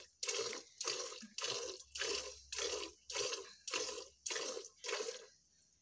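Cow being milked by hand, with jets of milk squirting from the teats into a steel bucket that already holds milk. The spurts come in an even rhythm of about two a second, one per squeeze, each a short hiss. They stop shortly before the end.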